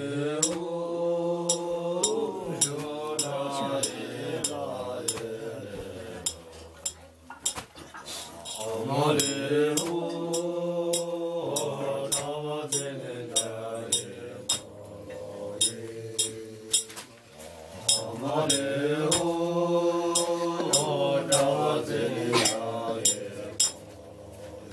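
A man's voice chanting a slow song in long held notes, three drawn-out phrases with short breaks between them. Cups and dishes clink sharply throughout.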